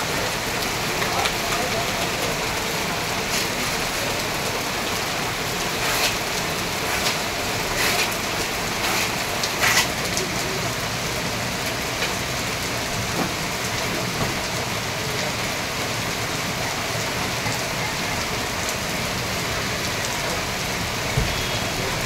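Heavy rain pouring onto a wet street, a steady hiss of drops hitting the road, with a few sharper taps between about six and ten seconds in.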